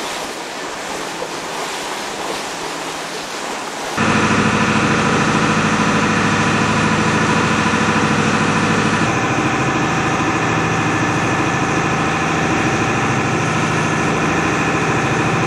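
Water rushing along the steel schooner's hull, then about four seconds in the boat's engine comes in loud and runs steadily as the schooner motors under bare masts.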